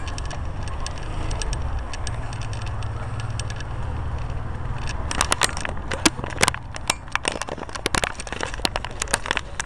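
Riding noise from a moving KMX Cobra trike: a steady low wind rumble on the microphone throughout. From about five seconds in, a run of sharp clicks and rattles is heard as it rolls along the paving.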